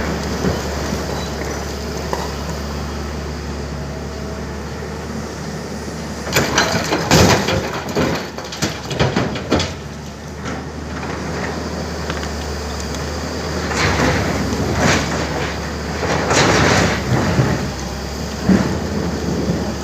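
Tata Hitachi excavator's engine running steadily, with two spells of heavy knocks and scraping from about six to ten seconds in and again from about fourteen to seventeen seconds, as boulders are loaded into a truck.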